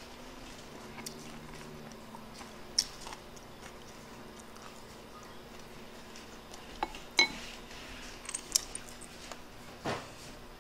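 Quiet eating sounds: soft chewing, with a metal spoon clicking against a dish a few times, loudest about three seconds and seven seconds in.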